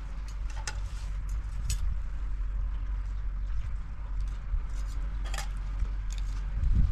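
Scattered light clinks and taps of plates and cutlery as a meal is eaten, over a steady low rumble.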